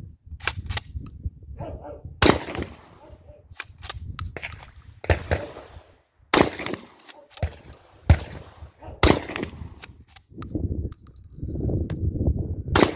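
Dickinson pump-action shotgun firing about six shots, one to three seconds apart, each with a short echo, with lighter clacks between. A low rumble of wind on the microphone runs underneath.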